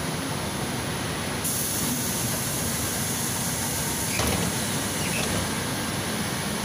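Cabin noise inside a Volgabus 5270G2 natural-gas city bus under way: a steady rumble of the drivetrain and road with a hiss over it. The hiss gets louder about a second and a half in, and there is a faint knock about four seconds in.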